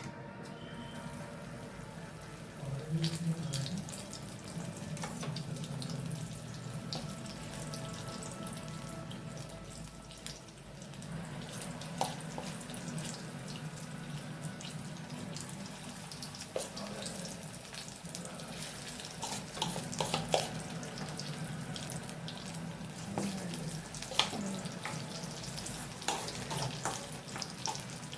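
Sweet corn pakodas deep-frying in hot oil: a steady sizzle with scattered crackles and pops throughout.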